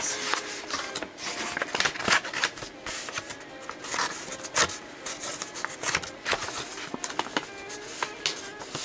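A sheet of origami paper being folded and creased by hand: irregular crisp rustles and crinkles, with a few sharper snaps of the paper.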